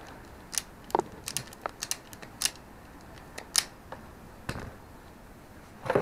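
Hand wire strippers snapping shut on electrical cable in a quick, irregular run of sharp clicks as the insulation is stripped, then a couple of single clicks and a duller knock near the end.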